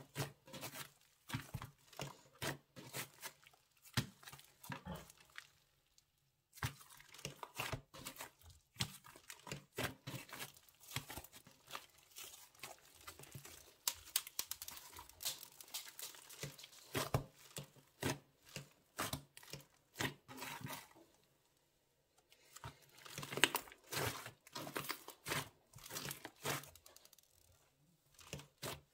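Slime being squeezed and worked by hand, giving dense, irregular crinkling and crackling clicks that stop briefly twice.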